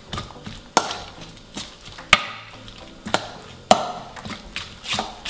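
A metal utensil stirring a wet mixture of grated zucchini, eggs and parsley in a stainless steel bowl, clinking sharply against the bowl's side at irregular intervals of about half a second to a second.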